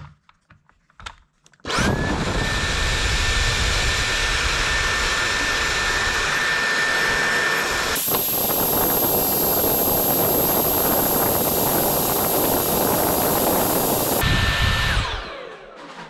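Dyson V8 cordless vacuum's motor switched on at Max power after a few light clicks, spinning up to a steady high whine and running loudly, with an abrupt change in the sound about halfway. Near the end it winds down with a falling whine as its worn-out battery dies after under a minute of running.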